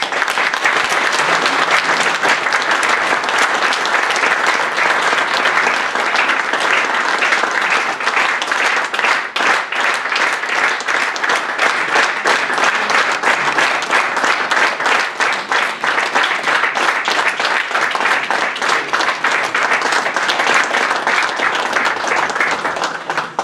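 Audience applauding: dense, steady clapping that starts all at once and dies away near the end.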